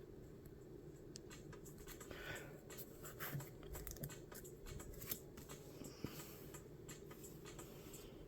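Faint, scattered soft clicks and slides of Pokémon trading cards being handled and flipped through.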